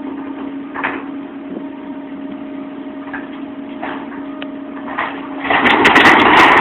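Engine of demolition machinery running at a steady speed, with a few short knocks and creaks. About five and a half seconds in, a much louder, rough noise with sharp crackles sets in.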